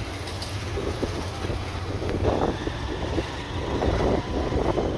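Motorcycle riding along a street, its engine running with a steady low rumble and wind buffeting the microphone.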